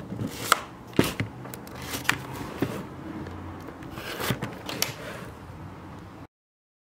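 A shrink-wrapped cardboard box being handled and turned on a tabletop: scattered sharp clicks, taps and short crinkling scrapes of the plastic wrap and card under the fingers. The sound cuts off abruptly near the end.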